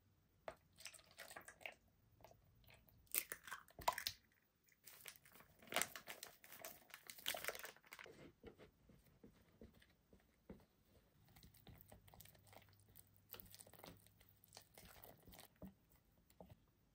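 Faint crinkling and rustling of a plastic packet and powdered pancake mix going into a plastic measuring jug, loudest in the first half. Then a whisk stirs batter in the jug with soft, irregular clicks.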